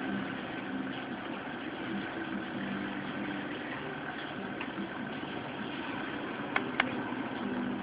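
Small electric motor on a homemade control board running with a steady hum, its speed set by a knob. Two sharp clicks near the end.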